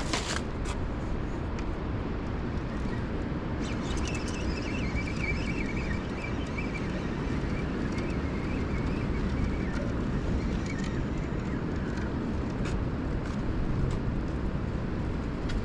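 Spinning reel being cranked to haul up a crab snare loaded with Dungeness crabs, its faint gear whine heard from about four to eleven seconds in. Under it is a steady rumble of wind on the microphone and background noise, with a few light clicks.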